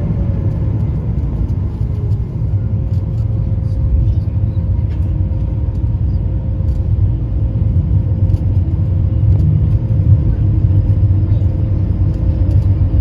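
Cabin noise of an Airbus A220-300 after landing: a steady low rumble from the aircraft rolling on the ground, with a faint engine whine from its Pratt & Whitney PW1500G geared turbofans that drops slightly in pitch in the first second.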